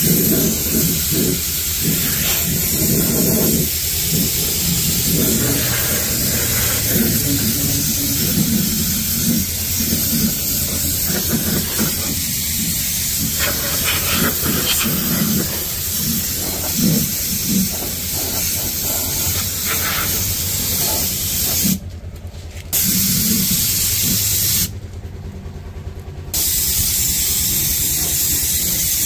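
Air spray gun hissing steadily as it sprays rubberized anti-rust underbody coating, stopping twice briefly near the end, with a steady low hum underneath.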